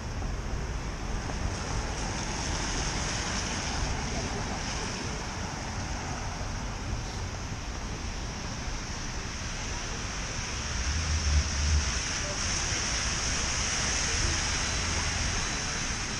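Steady city street ambience, a wash of traffic noise, with wind rumbling on the microphone and a short stronger gust about eleven seconds in.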